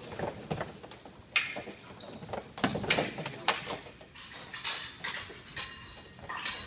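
Fencers' sneakers squeaking and thudding on the fencing strip as they move, with sharp clacks every second or so.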